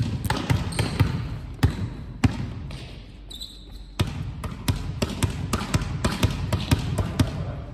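Volleyballs being hit and bouncing on a sports-hall floor: irregular sharp smacks and thuds, often several a second. A short squeak comes about three seconds in.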